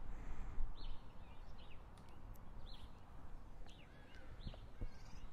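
Small birds chirping: short high calls repeating about every half second, a few with gliding notes, over a low outdoor rumble.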